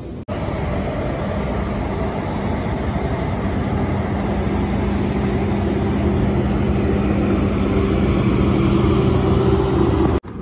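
Indian Railways electric locomotive and its train moving past along the platform: a steady mechanical running noise with a low hum of several held tones, growing gradually louder.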